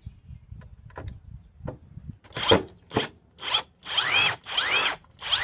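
Cordless impact driver run in about six short trigger bursts, its motor whining up and back down in each, backing a Phillips screw out of wood. A few light handling clicks come before the first burst.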